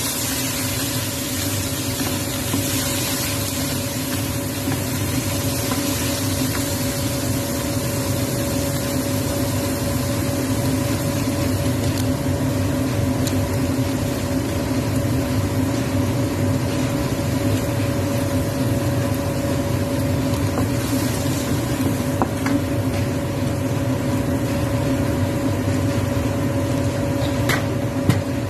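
A steady machine hum over an even hiss, with two brief clicks, one about three-quarters of the way through and one near the end.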